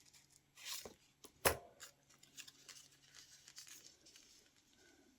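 Scissors cutting paper in a series of short, scratchy snips, with a brief rustle and one sharp knock about a second and a half in.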